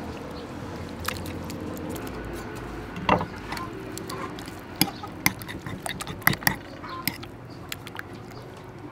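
Metal spoon stirring chopped clam meat into beaten egg in a ceramic bowl. Sharp clinks of the spoon against the bowl come again and again, most of them between about three and seven seconds in.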